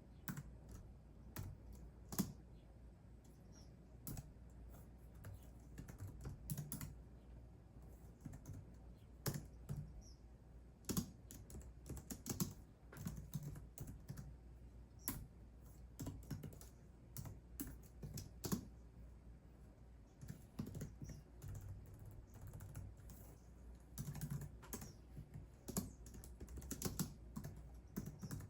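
Typing on a computer keyboard: irregular runs of keystroke clicks with short pauses between them, over a faint steady low hum.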